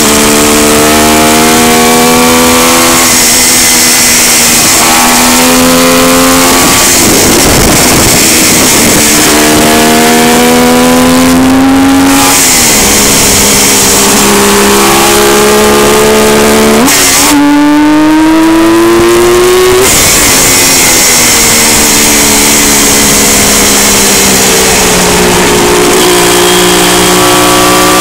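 Motorcycle engine running under way, its pitch climbing as it revs and then dropping sharply at each of about five gear changes, over a loud steady rush of wind noise.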